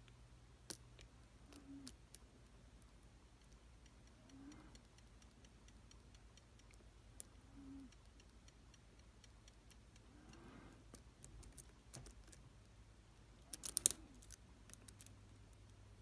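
Lock picking in an ASSA Twin Combi cylinder: a steel pick and tension wrench making faint scattered clicks and ticks against the pins in the keyway. A quick cluster of sharper, louder clicks comes about two seconds before the end.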